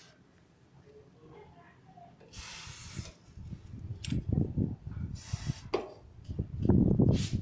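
Aerosol can of brake cleaner sprayed through its straw nozzle in several short hissing bursts. A low rumble underneath grows louder toward the end.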